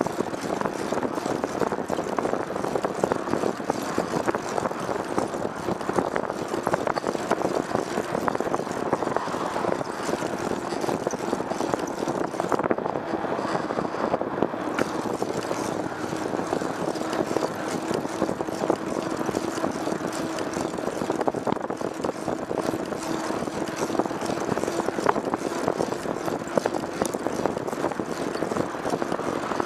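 A vehicle running steadily at an even pace, engine and road noise with a faint steady hum and no change in speed.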